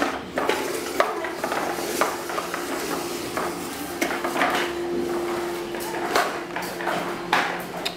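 Plastic push-along walker toy clattering and rattling as it is pushed across a tiled floor, with irregular clicks and clacks from its wheels and moving parts.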